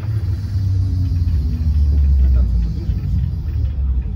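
Low rumble of a trolleybus rolling along a street, heard from inside the passenger cabin: road and running-gear noise with a low hum that drops in pitch about a second in.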